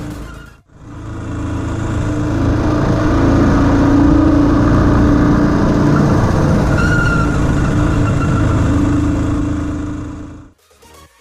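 A vehicle engine running steadily while on the move, mixed with road and wind noise. It drops out briefly about a second in and fades away near the end.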